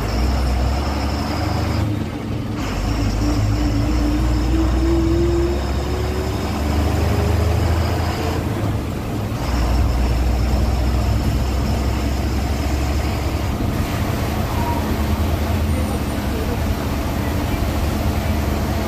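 Bus engine running under way, heard from the driver's cab, with a steady low rumble and road noise. A whine rises slowly in pitch over the first half, and the sound dips briefly twice.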